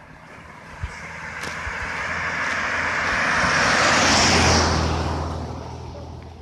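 A road vehicle driving past on the adjacent road. Tyre and engine noise swells over a few seconds, is loudest about four seconds in, then fades away.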